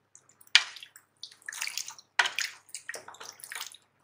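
A spoon stirring chunks of raw beef, onion and tomato through watery masala in an aluminium pressure-cooker pot, giving uneven sloshing and splashing strokes. The sharpest strokes come about half a second in and again around two and three seconds.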